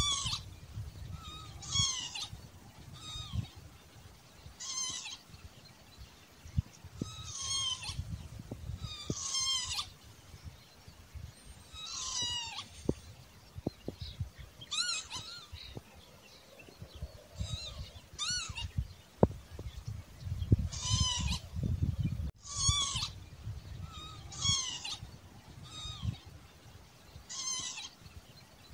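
Northern lapwing calling: short slurred 'pee-wit' notes that bend up and down in pitch, repeated every one to three seconds, over a low rumble.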